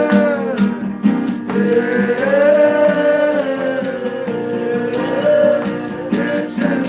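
Worship song: a man's voice holds long, slowly gliding notes without clear words over steadily plucked acoustic guitar.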